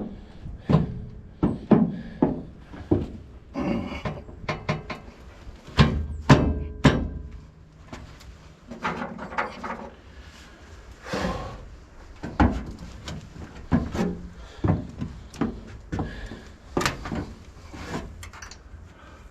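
Steel parts of a B&W rail-mounted fifth-wheel hitch clanking and knocking as they are worked into the truck-bed rails. The knocks come irregularly, many of them, some with a brief metallic ring.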